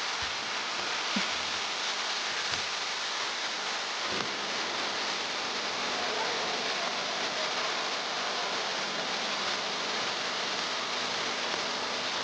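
Steady, even rushing of water, with no rises or falls.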